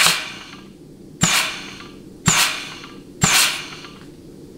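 Four short blasts of compressed air from a blow gun into the 3-4 clutch apply passage of a 700R4 transmission case, each starting with a sharp knock and trailing off in a hiss: a case air check of the 3-4 clutch circuit.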